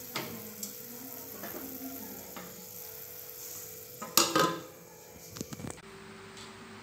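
Aluminium lid set down on a clay cooking pot: a metallic clatter with a brief ringing about four seconds in, after a few light clicks and followed by a few more.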